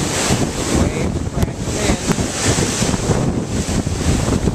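Wind buffeting the camera microphone: a steady, loud rushing noise that rises and falls.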